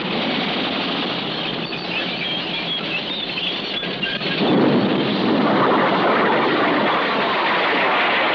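Tanks on the move, their tracks squealing and clattering over the engine noise. About four seconds in, a louder, fuller rushing roar comes in and holds.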